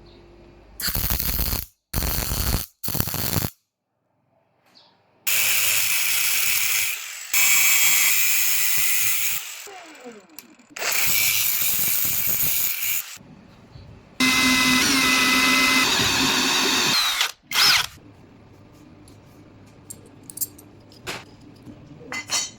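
Handheld power tool run in a series of bursts: three short ones, then four longer runs of two to three seconds each, and a last short burst.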